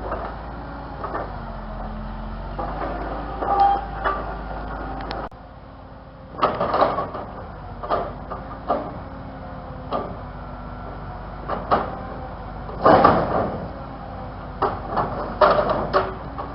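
A vehicle running steadily, with frequent rattles and clunks as it travels over rough ground. The steady hum drops suddenly about five seconds in, and the loudest clunks come in clusters near the end.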